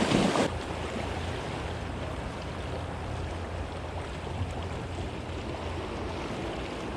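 Steady wash of the sea against a rocky shore, with a brief louder rush in the first half second.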